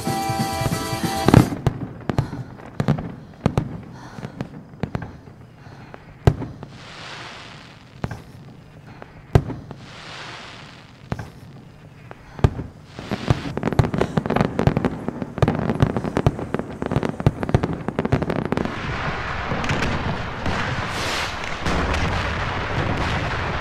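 Fireworks going off: music cuts off about a second in, then a string of sharp bangs with hissing bursts between them, turning into dense continuous crackling for the last few seconds.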